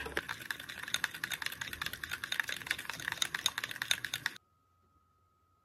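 Fast typing on a keyboard, a quick run of clicking keystrokes that stops abruptly about four seconds in.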